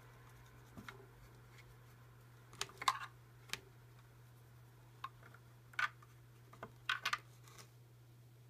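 Scattered light taps and clicks, about a dozen, with the loudest cluster about three seconds in: a pencil knocking against a desk and mouse pad as a cat bats at it.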